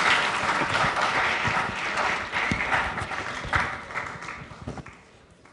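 Audience of students clapping, thinning out and dying away over about five seconds.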